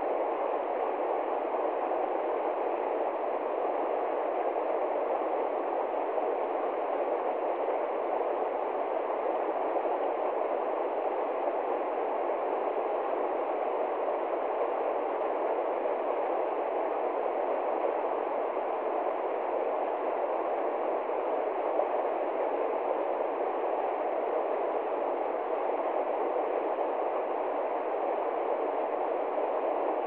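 Mountain stream rushing over rocks and small cascades: a steady, unbroken rush of water.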